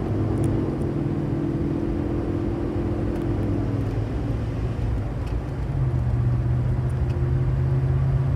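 Dodge Dakota pulling away at quarter throttle, heard from inside the cab: a steady engine hum whose pitch pattern changes about four seconds in, then settles into a lower, stronger drone from about six seconds as the 46RE automatic, fitted with a new valve body, shifts up cleanly.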